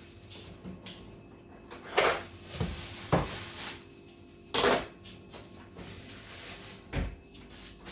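Kitchen cookware and dishes knocked and clattered about five times, a pot and containers handled while frozen chicken and mushrooms are put into the pan, over a faint steady hum.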